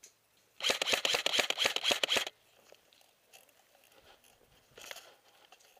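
Airsoft electric gun firing a rapid full-auto burst of about a second and a half, a fast train of sharp clicks at roughly ten shots a second, with a fainter short burst near the end.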